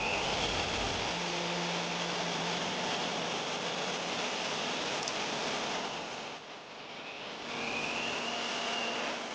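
Electric power tool motor running with a high whine. It eases off about six seconds in, then spins back up.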